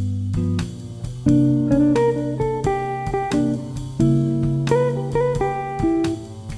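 Background music: a tune of plucked guitar notes over a low bass line.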